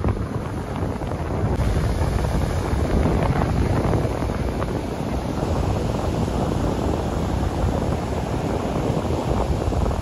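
Ocean surf breaking and washing up a sandy beach, with wind blowing across the microphone.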